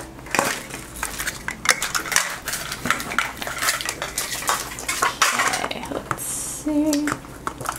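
Small hard plastic miniature toys and a plastic capsule ball clicking and clattering as they are handled and set down on a table. Just after six seconds there is a short rasping rustle as the capsule's sticker seal is picked at, then a brief hum from a voice.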